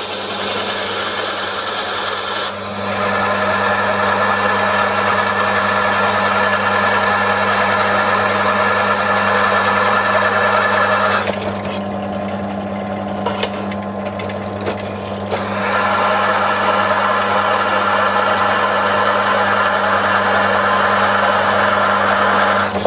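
Bench drill press running with a steady motor hum while a 5.7 mm twist drill cuts through a metal block. The cutting noise stops for about four seconds around the middle as the drill spins free, then starts again.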